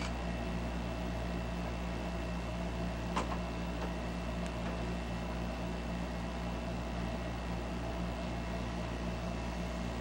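Steady low hum and hiss of an old VHS camcorder recording during a pause in the action, with one faint click about three seconds in.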